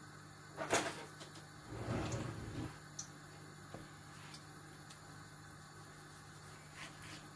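A sharp knock about a second in, a softer thump around two seconds, then a few light clicks, over a steady low hum: kitchen handling noises.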